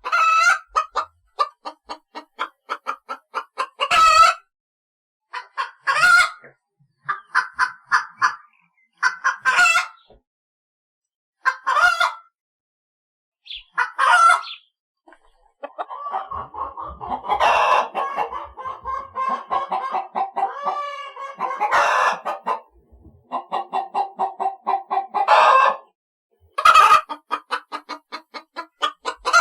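Chickens clucking in quick runs of short clucks, each run ending in a loud squawk, about every two to three seconds. A busier stretch in the middle has several calls overlapping.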